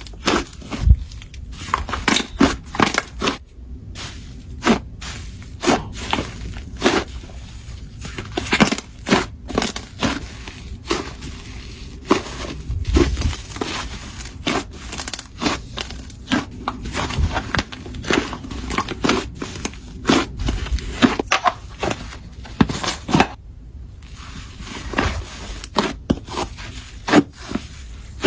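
Slime being squished and stretched, giving a dense, irregular run of crackles and pops.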